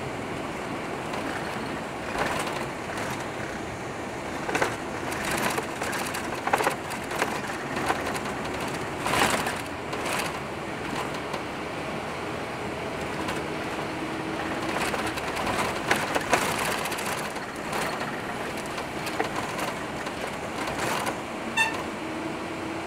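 Street traffic heard from inside a moving vehicle: steady engine and road noise with frequent rattles and knocks as it jolts along, and a brief high ringing tone near the end.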